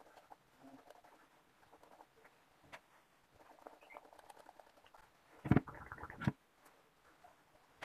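Soft scratching and rustling of fingers working through braids at the scalp, with small clicks. About five and a half seconds in comes a louder rubbing thump close to the microphone, lasting about a second.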